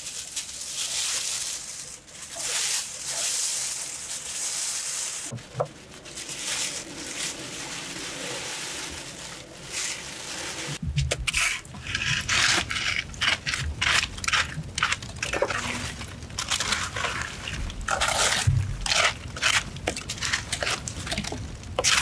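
Plastic sheeting crinkling and rustling as a raw duck is handled on it. Then, about halfway through, a wooden stick scrapes and rakes burning embers across the floor of a brick wood-fired oven, in a busy run of scrapes and knocks with the fire crackling.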